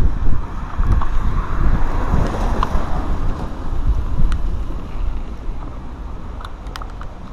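Wind buffeting the camera's microphone: a loud, gusting low rumble that eases off somewhat in the second half, with a few sharp light ticks near the end.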